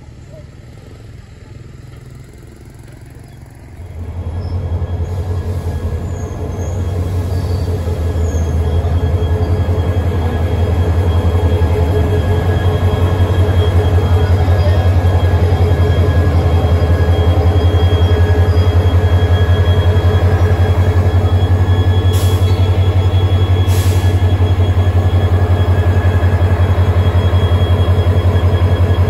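KTMB Class 25 diesel-electric locomotive running close by, a loud deep steady engine throb with steady whining tones above it. It comes in about four seconds in and grows louder until about twelve seconds, then holds steady; two brief high-pitched sounds come about two seconds apart late on.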